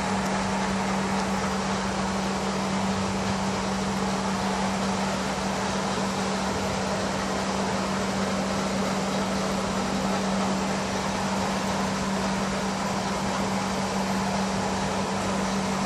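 Aquarium air pump humming steadily, with one constant low tone, over the even hiss and bubbling of aeration in the fish tank.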